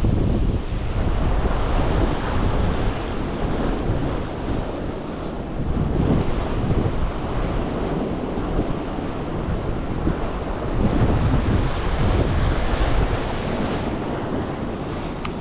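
Sea swell surging and washing against a rock ledge, with wind buffeting the microphone in gusts.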